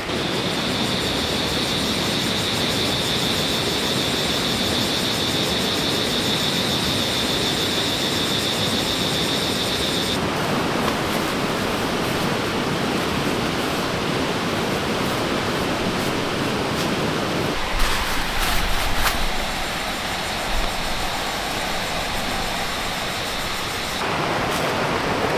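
A stream's running water, a steady rushing noise. A continuous high-pitched buzz sits over it and stops abruptly about ten seconds in.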